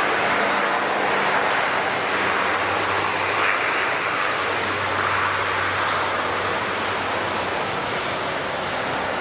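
Airliner engine noise at an airport: a steady rushing sound with a faint low hum, getting slightly quieter toward the end.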